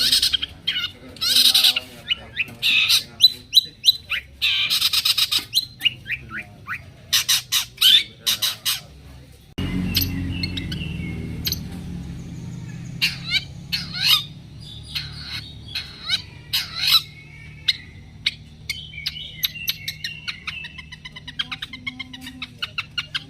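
Long-tailed shrike (cendet) singing: a fast run of harsh, rasping calls and short chirps, ending in a quick chattering series. About ten seconds in, the background changes suddenly to a steady low hum.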